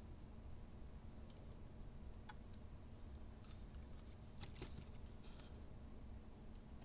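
A handful of faint, scattered clicks and ticks from hands handling an HO-scale model locomotive chassis and needle oiler while its drive is oiled, over a low steady hum.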